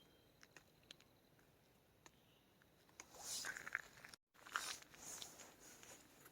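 Close crunching and rustling with sharp clicks lasting about three seconds, after a few faint scattered ticks; the sound drops out completely for a moment partway through.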